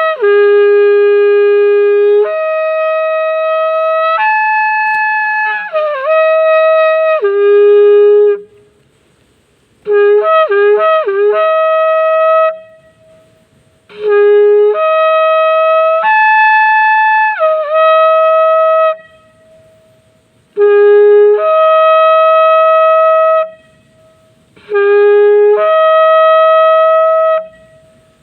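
A shofar blown loudly in five long blasts with pauses between them. Each blast starts on a low note and jumps up to a higher one, with some bending in pitch. About ten seconds in there is a run of short broken notes.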